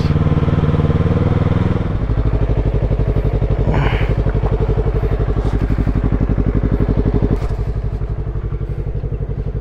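Yamaha MT-03's 321 cc parallel-twin engine slows from low-speed running and settles into a steady idle about two seconds in as the bike comes to a stop. A short, sharp noise comes about four seconds in.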